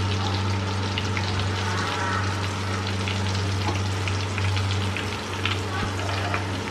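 Prawn pieces deep-frying in hot oil in an iron kadai, a dense steady sizzle with many small crackles; the pieces are fried crisp and done. A steady low hum runs underneath.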